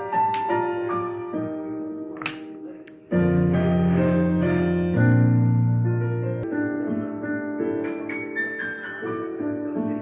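Background piano music, a melody of single notes with chords under it. It grows louder about three seconds in as deep bass notes join.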